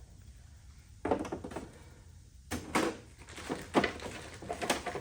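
A string of sharp clicks and knocks of hand work with small metal parts and tools at a car's rear hatch lock. The first comes about a second in and the rest follow irregularly.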